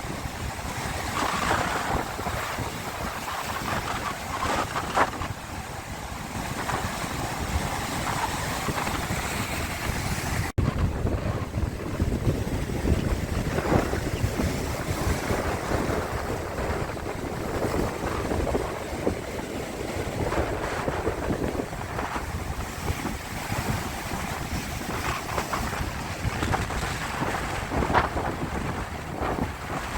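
Sea waves washing and surging, with wind buffeting the microphone. The sound drops out for an instant about a third of the way in, and after that there is more low rumble.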